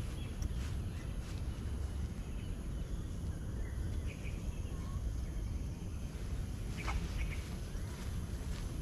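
Low rumble of wind and walking noise on the camera's microphone during a walk on grass, with a few short, faint bird chirps: one near the start, one about four seconds in and a couple about seven seconds in.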